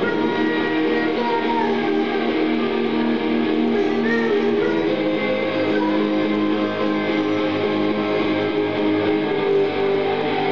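Electric guitar played live through an amplifier, a solo instrumental passage of chords held and changed every second or two.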